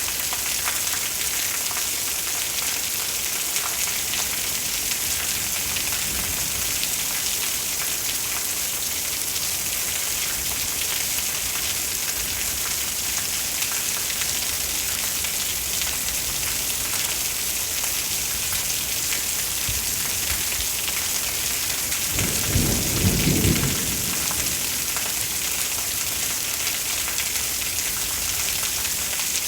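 Steady rain falling in a thunderstorm, with a short low rumble of thunder about three-quarters of the way through.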